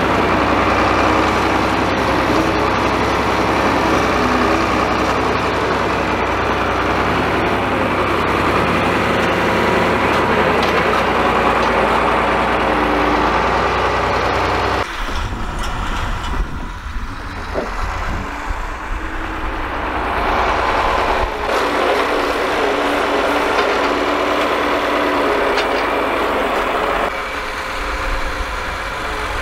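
John Deere farm tractor engine running steadily under load while its front-loader spear carries a round hay bale. About halfway through, the sound changes abruptly: the engine is fainter, with an uneven low rumble coming and going.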